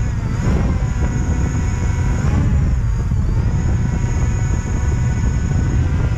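Quadcopter drone's electric motors and propellers whining steadily, the pitch dipping and bending as the motor speeds change, over a heavy low rumble.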